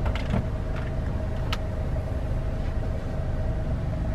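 Road noise inside a moving car's cabin: a steady low rumble with a faint steady hum, and a few light clicks in the first two seconds.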